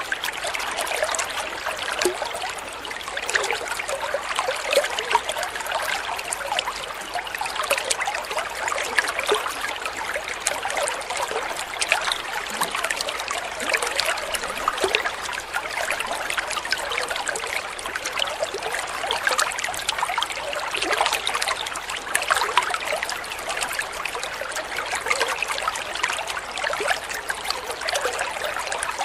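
Water trickling steadily, with many small splashes, like a small stream.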